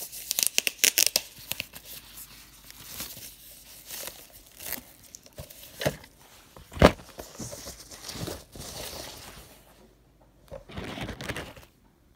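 Plastic packaging crinkling and tearing while a boxed portable DVD player is pulled out of its bag and foam packing, with handling rustle throughout. A single sharp knock about seven seconds in.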